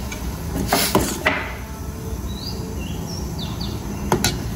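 A spoon knocks a few times against the cooking pot about a second in and once more near the end, over a steady low rumble from the stove. Several short bird chirps sound in between.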